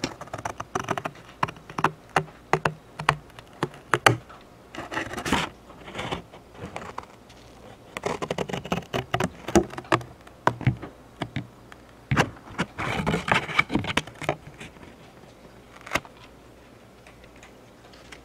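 Cardboard Funko Pop box being pulled apart by hand: a busy run of sharp crackles and clicks with several longer scrapes as glued panels are peeled from each other.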